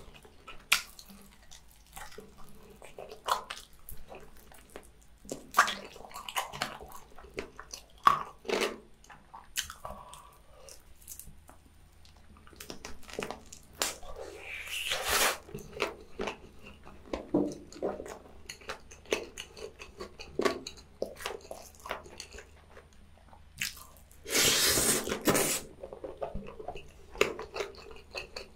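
Close-miked eating sounds of a fried chicken leg: crunchy bites into the fried coating, wet chewing and lip smacks. There are two longer, louder breathy mouth sounds, one about fifteen seconds in and a longer one about twenty-four seconds in.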